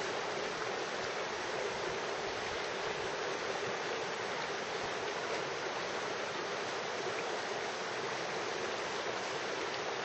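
Shallow river rushing over rocks and boulders in rapids: a steady, even roar of moving water.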